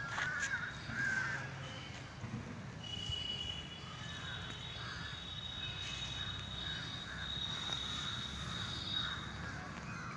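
Crows cawing repeatedly: a couple of loud caws at the start, then a run of calls through the middle and later part, over a low outdoor rumble. A steady high tone sounds through the middle seconds.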